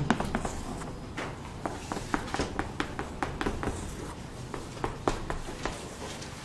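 Chalk writing on a blackboard: an irregular run of short, sharp taps and scrapes as numerals are written and circled.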